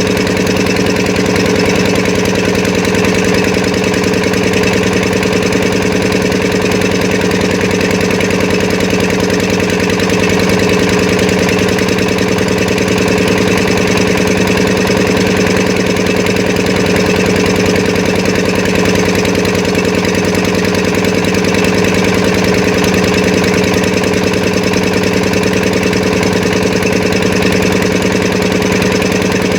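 An engine running steadily at an even idle, its tone unchanging throughout.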